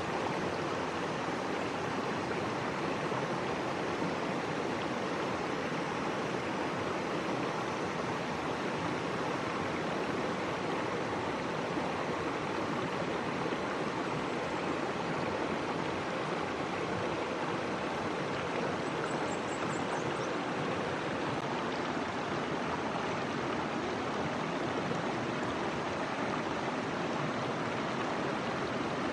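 Stream water rushing steadily over rocks through shallow rapids.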